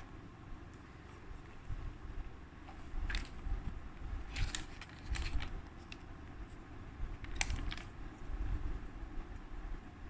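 Hands handling unboxing packaging and small items: a few scattered short clicks and rustles over a steady low rumble.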